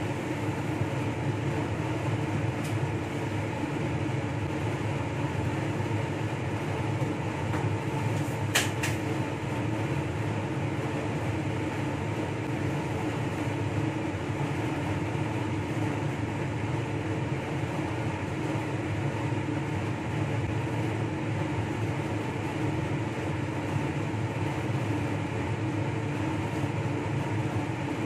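Steady hum of a fan or blower running, with a few constant tones in it. A sharp double click comes about eight seconds in.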